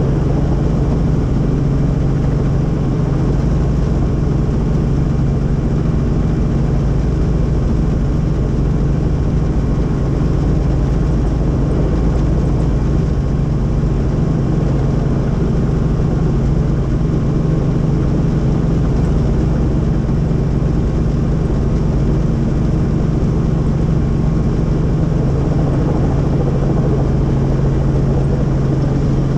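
Helicopter running steadily, heard from on board: a constant loud drone of engine and rotors with a strong low hum that does not change.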